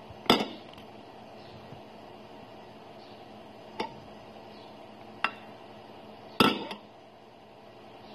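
Dishes and utensils knocking and clinking: four sharp clinks spread over several seconds, the first and the one about six seconds in the loudest, over a faint steady room hum.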